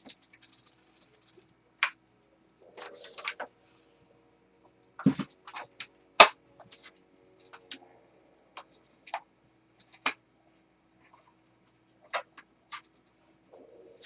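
Irregular taps, clicks and short scrapes of hands and sculpting tools working oil-based clay, with a sharp knock about six seconds in.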